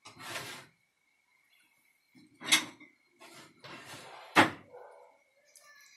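Kitchen handling noises as a serving plate is fetched: a few short rustles and knocks, the sharpest a single knock like a cupboard door shutting about four and a half seconds in.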